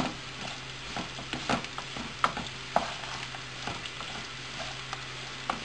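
Rice grains toasting in oil in a frying pan, a steady sizzle with a wooden spoon scraping and knocking against the pan at irregular moments as the rice is stirred. This is the dry-toasting stage of pilaf, before the water goes in.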